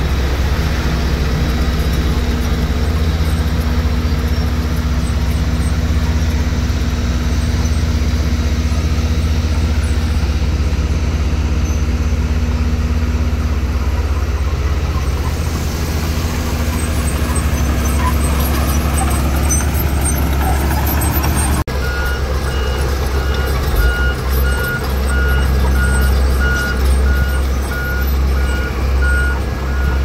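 Diesel engine of a heavy earthmoving machine running steadily. About two-thirds of the way through, the sound breaks off for a moment, and from then on a reversing alarm beeps steadily over the engine.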